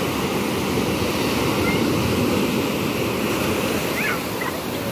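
Sea surf breaking and foamy water rushing in the shallows, a steady loud rush.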